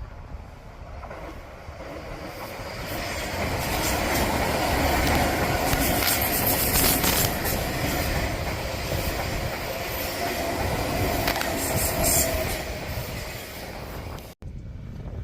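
Odakyu Line electric train passing at speed. The run builds over a few seconds, with wheels clicking over rail joints in two clusters, then eases off. The sound cuts off suddenly near the end.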